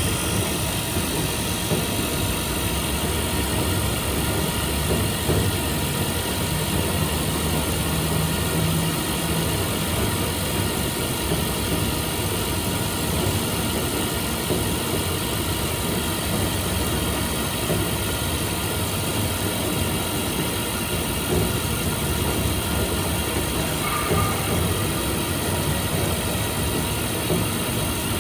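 Machine-shop machinery running steadily during fine milling of steel plate: a dense, even low drone with faint steady high-pitched tones over it.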